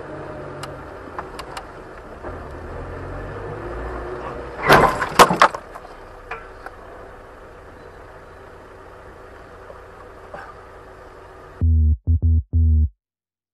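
Dashcam recording of traffic noise, broken about five seconds in by a quick cluster of loud bangs: a car collision heard from inside the car. Near the end the sound cuts to electronic music with a chopped, pulsing bass that drops out briefly.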